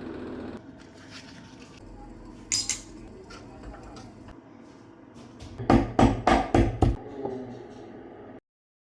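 A blender's motor hum cuts off just after the start. Then comes kitchen clatter: a brief clink, then a quick run of about six loud knocks of kitchenware on a hard surface.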